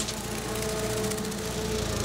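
Tractor engine running steadily while driving a brush hog rotary mower.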